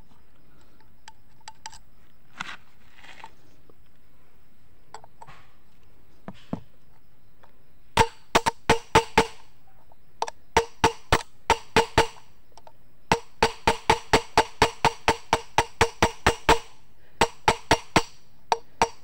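Hammer blows on metal at a Honda CB Unicorn's rear wheel hub, driving a wheel bearing into its seat. A few light clicks come first. From about eight seconds in, sharp ringing metallic strikes follow in quick runs of about four a second, dozens of blows in all.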